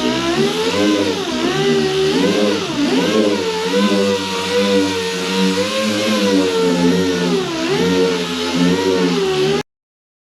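Dual-action orbital sander running on a car panel, its motor pitch wavering up and down as the load on the pad changes. The sound cuts off abruptly near the end.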